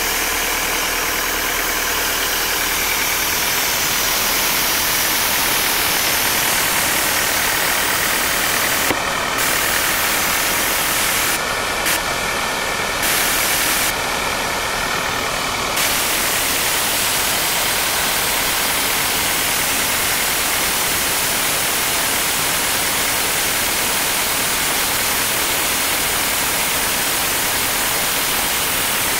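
The diesel engine of an Atlas Copco XAS97 portable air compressor running steadily at idle.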